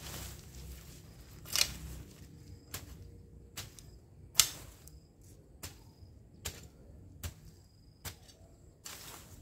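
Long-handled hoe chopping into soil and weeds in a steady rhythm, about one stroke a second, some strokes sharper than others.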